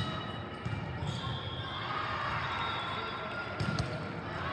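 A volleyball bouncing on the sports-hall floor, a few dull thuds about a second in and again near the end, over a steady murmur of voices echoing in the hall.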